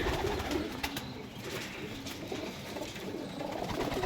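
Domestic pigeons cooing, several low wavering coos overlapping, with a few faint clicks among them.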